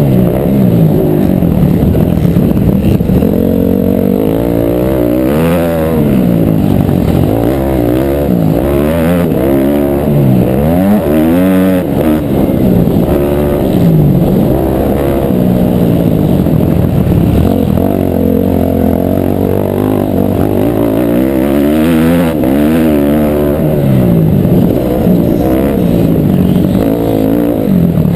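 Motocross bike engine, heard from a camera mounted on the bike, revving hard at race pace. The pitch climbs through each gear and drops off at the shifts and corners, over and over.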